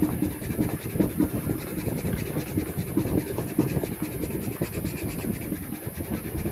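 A white eraser block scrubbed rapidly back and forth over the smooth Oro Legacy leather of a Red Wing moc toe boot, a dense run of short rough rubbing strokes. It is rubbing off indigo colour transfer (crocking) from selvedge denim.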